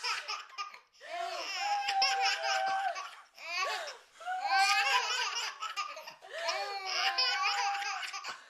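Babies laughing in several bouts of high-pitched giggles, with short pauses between them.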